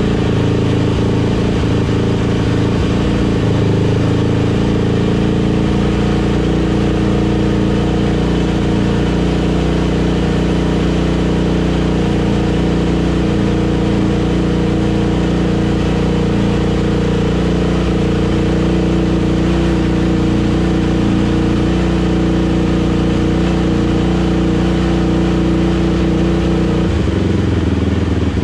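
Yamaha YZ426F dirt bike's 426cc four-stroke single-cylinder engine running at a steady, fairly constant speed, its note shifting slightly near the end. The engine has just been revived after being seized and still runs a little rough.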